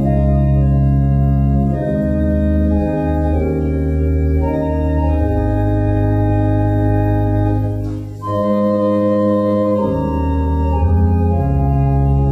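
Organ music: slow, sustained chords that change every second or two, with a brief drop in level about eight seconds in.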